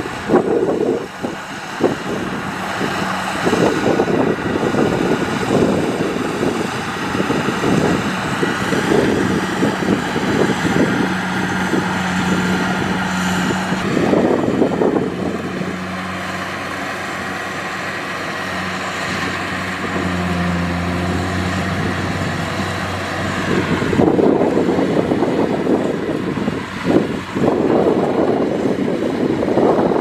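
Kubota DC-70 Plus rice combine harvester running steadily under load as it cuts and threshes rice: a diesel engine hum under a broad mechanical rush. The sound shifts in character about halfway through and again near the end.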